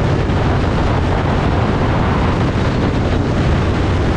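Harley-Davidson V-twin motorcycle underway, a steady low engine rumble under heavy wind rush on the microphone.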